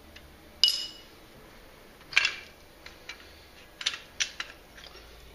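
Steel tools and parts clinking: a gear puller handled against the front wheel hub, five or six separate sharp metallic clinks, the loudest near the start ringing briefly.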